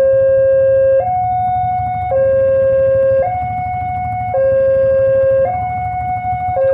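Railway level-crossing warning alarm sounding its two-tone signal, swapping steadily between a lower and a higher tone about once a second, which warns that a train is approaching. A low rumble runs underneath.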